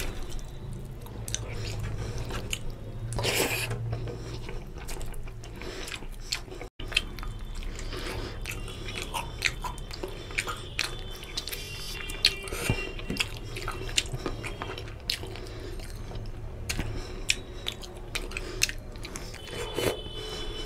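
Close-miked eating sounds: wet chewing and mouth smacks, with the squelch of fingers working rice into oily chicken curry on a steel plate. There are many small clicks and smacks, and the sound cuts out for an instant about seven seconds in.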